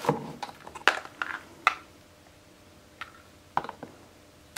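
Handling noise from camera accessories being moved around in a hard plastic carry case: a scatter of short clicks and light knocks, several close together in the first two seconds and two more later on.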